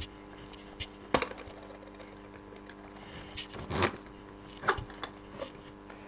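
Brass padlock being handled and seated in a lock vise: a few scattered clicks and knocks, the sharpest about a second in, over a faint steady hum.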